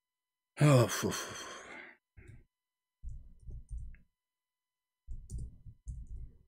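A loud, long sigh with a falling voice, then computer keyboard typing in two short runs of soft taps.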